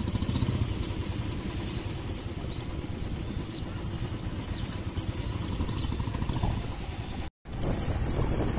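Motorcycle engine running at low speed in street traffic, heard from the rider's seat as a steady low rumble. The sound drops out for a split second a little past seven seconds in.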